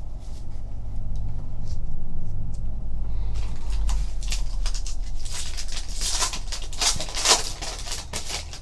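Trading-card packs and cards being handled: a run of crinkling, rustling sounds starts a few seconds in and is loudest near the end, over a steady low hum.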